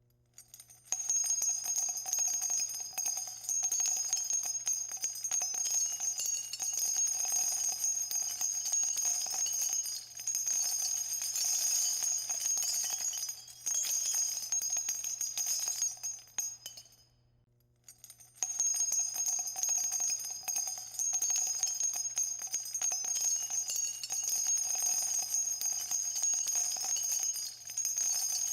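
Sound effect of a shower of metal coins falling, a dense continuous clinking and jingling with a bright ringing. It starts about a second in, breaks off for a moment about two-thirds of the way through, then starts again.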